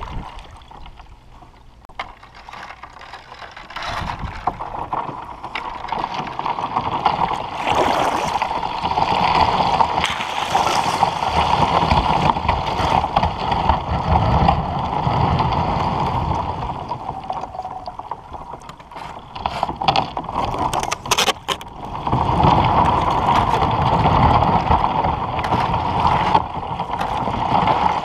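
Plastic kayak hull pushing through thin broken lake ice: a continuous scraping and crackling of ice against the hull with water lapping, quieter for the first few seconds. A cluster of sharp knocks comes about three-quarters of the way through.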